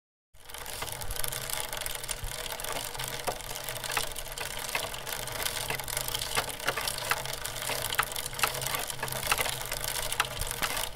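A bicycle riding along a tarmac lane: a steady hiss of tyres on the road, with irregular clicks and rattles from the bike. It starts suddenly just after the beginning.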